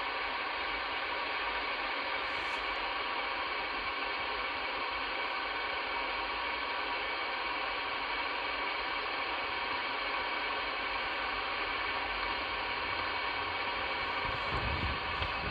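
Steady static hiss from a Midland Alan 9001 CB radio's speaker, tuned to an empty 11-metre frequency with no station coming through. A low rumble comes in near the end.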